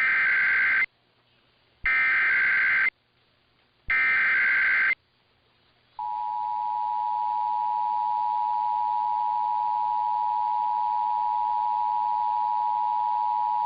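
Emergency Alert System SAME header: three bursts of buzzing digital data tones, each about a second long and two seconds apart. About six seconds in, the steady two-tone EAS attention signal starts. It is the sound that opens a broadcast emergency alert, here a special marine warning.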